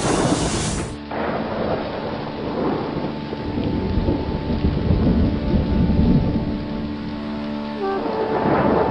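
Rain with rumbling thunder, with a few steady held tones underneath from about a second in that change pitch near the end.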